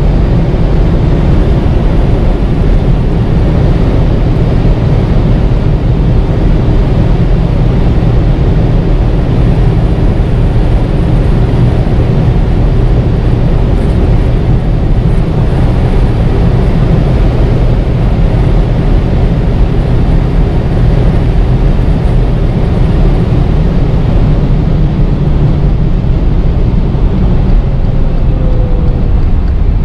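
Alfa Romeo Giulia Quadrifoglio with its 2.9-litre twin-turbo V6 running at steady Autobahn speed: loud, even engine, tyre and wind noise with no changes in pace.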